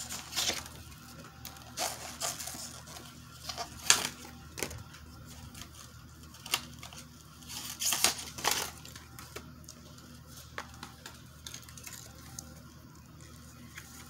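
Paper stuffing rustling and crinkling as it is pulled out of a new leather wallet and laid down, in scattered short rustles with the loudest about four and eight seconds in.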